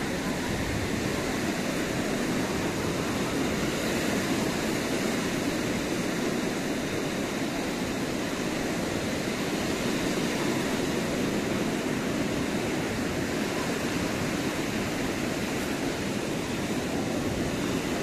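Small waves breaking along a sandy shore, a steady wash of surf.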